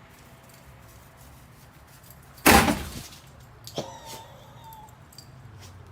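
A single loud bang, like something heavy hitting or slamming, about two and a half seconds in, dying away within half a second, followed by a few softer knocks.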